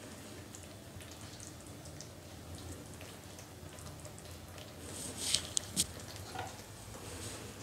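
Thick egg masala gravy of tomato, onion and yogurt, made without added water, simmering in a nonstick frying pan: a faint sizzle with scattered small pops and spits. A few sharper, louder crackles come about five seconds in.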